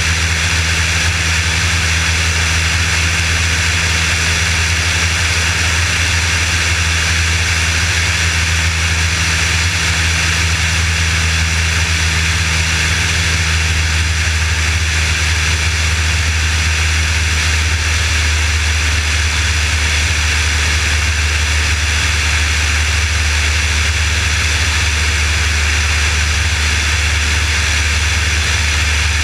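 Piper Warrior's four-cylinder Lycoming piston engine and propeller running steadily on approach to landing, mixed with a constant hiss of airflow over the outside-mounted camera. About two-thirds of the way through, one of the drone's low notes drops away.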